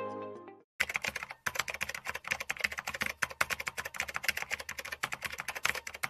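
Background music fades out, then a rapid, continuous run of keyboard typing clicks, a typing sound effect for text being typed out on screen, with a brief pause about a second and a half in.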